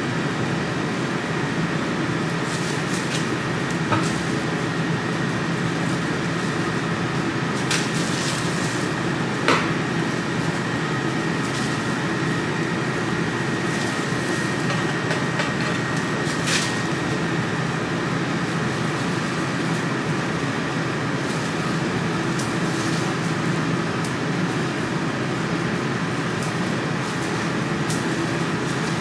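Steady hum and whir of running kitchen machinery, even throughout, with a few short clicks over it, the clearest about four seconds in and near ten seconds in.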